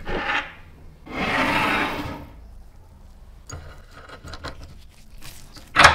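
A small metal clamp-on bench vise is handled on a wooden tabletop and clamped to the table edge. There is a knock, then about a second of scraping against the wood, then light clicks from the clamp screw, and a sharp knock near the end.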